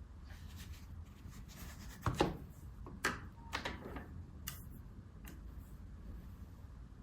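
A handful of short, light knocks and clicks, the loudest about two and three seconds in, over a low steady hum.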